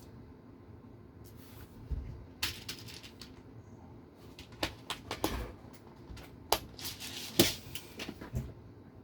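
Small plastic and metal RC car parts and tools being handled, giving a dozen or so scattered light clicks and taps, the sharpest about seven seconds in.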